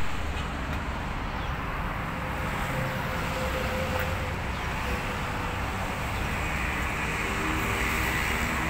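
Steady low vehicle rumble with traffic noise and a few faint wavering tones.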